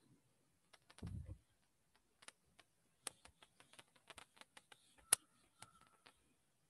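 Faint scattered clicks and light taps of whiteboard work, a marker and an eraser against the board, with a dull thump about a second in.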